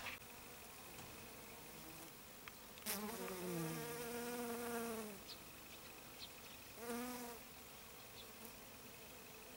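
Honeybee buzzing close past the microphone, its pitch wavering as it flies by: a longer pass from about three to five seconds in and a short one around seven seconds. A click at the very start.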